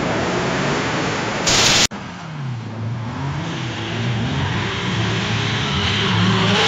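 A car engine revving, its pitch rising and falling repeatedly over a hiss of road and tyre noise, growing louder toward the end. Before it, about two seconds in, a short loud burst of hissing noise cuts off abruptly after a steady noisy rumble.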